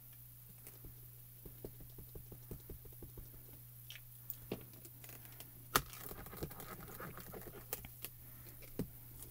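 Many light, quick taps and clicks of a small mini ink cube being dabbed onto clear stamps, with a couple of sharper clicks about six and nine seconds in, over a faint steady low hum.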